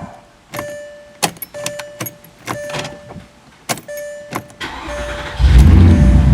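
Warning chime beeping about twice a second, with a few sharp clicks. Near the end the starter cranks briefly and the 2004 Porsche Cayenne S's 4.5-litre V8 catches and runs loudly.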